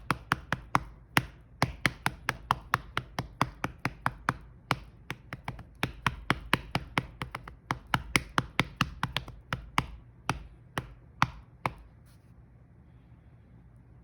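A hand rapidly patting a Siamese cat's belly, about four slaps a second, stopping near the end.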